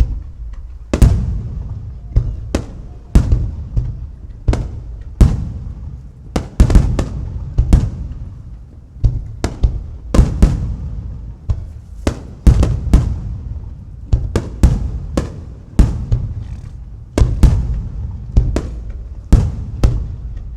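Aerial firework shells bursting in rapid succession: sharp booms every half second to second, some in quick pairs or triples, each followed by an echoing, rumbling decay.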